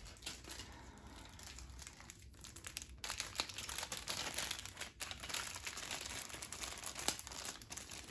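Small plastic baggies being handled, crinkling and rustling, growing louder and busier from about three seconds in.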